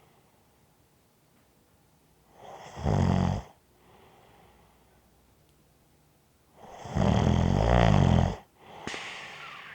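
A person snoring: a short snore about three seconds in, then a longer, louder snore of under two seconds. Near the end comes a softer breath carrying a light whistle that falls in pitch.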